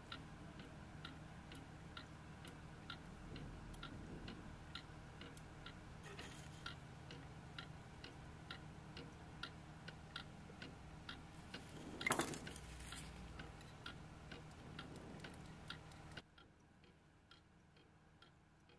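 Faint, crisp ticking of a 1953 Smiths clock movement's lever escapement at an even pace, the pallet lever snapping across as the escape wheel turns under light mainspring power. It has a louder handling knock about twelve seconds in and cuts off near the end.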